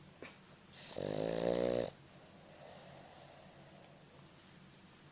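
Sleeping Boston Terrier snoring: one loud snore lasting about a second, starting under a second in, then a long stretch of quieter breathing.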